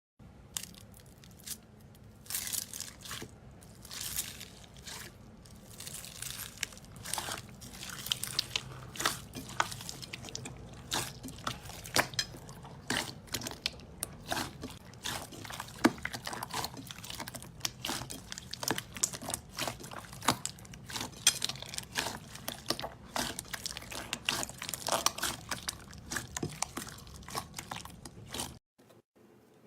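Slime being squeezed and poked by hand, giving a dense, irregular run of crackling clicks and wet pops. It cuts off abruptly near the end.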